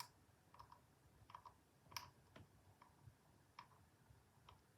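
Faint, irregular clicks of a lock pick probing and lifting the pins inside a Federal 95 padlock held under light tension, a few sharp ticks scattered a half second or more apart.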